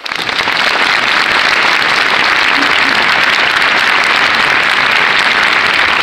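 Large crowd applauding, rising to full strength within half a second and then holding steady.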